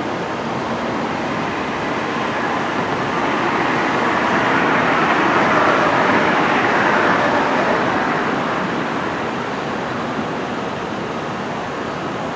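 A vehicle passing by: a steady rushing rumble that swells to its loudest about six seconds in, then fades.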